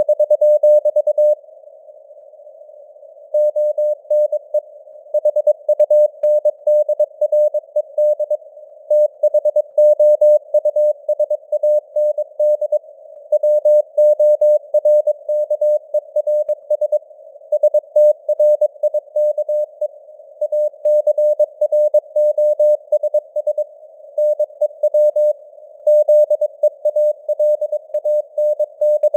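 Morse code sent at 22 words per minute as a keyed, mid-pitched steady tone: dots and dashes grouped into words with short pauses between them. It sounds over a narrow band of simulated radio hiss, and the signal strength varies as in radio fading (QSB).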